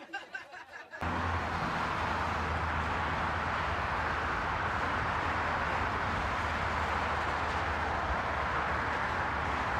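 Steady rush of traffic on a busy multi-lane highway, with a low rumble underneath, starting abruptly about a second in.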